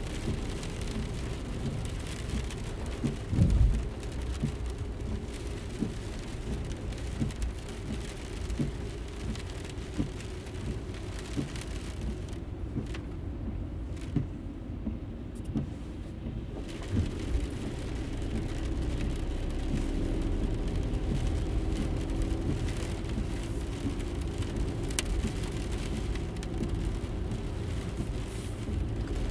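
Car interior noise while driving: a steady low rumble of engine and road, scattered small rattles and clicks, and one louder thump about three seconds in. The hiss drops away for a few seconds around the middle, then the rumble grows a little louder toward the end.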